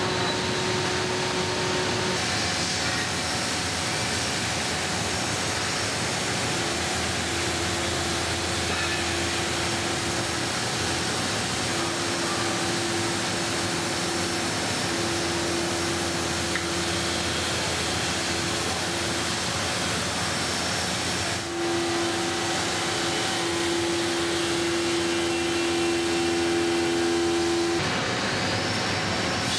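Machine tool running as it machines and threads the neck of an aluminium scuba cylinder: a steady mechanical noise with a hiss and a steady hum, changing abruptly a few times.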